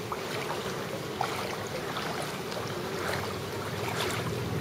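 Steady low rumbling outdoor noise over shallow floodwater, with a few faint small splashes as the water moves around a person's legs.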